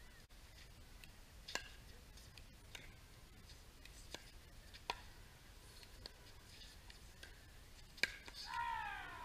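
Pickleball paddles striking a hard plastic pickleball during a rally: six sharp pops at uneven intervals, the loudest about eight seconds in. Near the end a player's voice calls out with a falling pitch.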